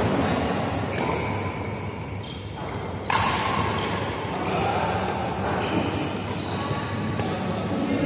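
Doubles badminton rally in an echoing hall: rackets striking the shuttlecock, and court shoes squeaking and stepping on the court mat. A louder knock comes about three seconds in.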